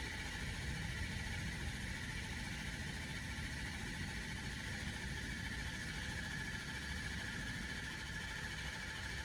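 Ford 6.0 Power Stroke V8 turbodiesel running steadily after starting, now that the high-pressure oil leak at the standpipe O-ring has been repaired.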